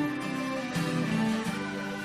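Music: a ballad's acoustic guitar playing chords, with no singing.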